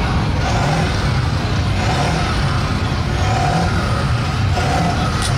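Off-road vehicle engine running loud, its pitch rising and falling several times as it is revved.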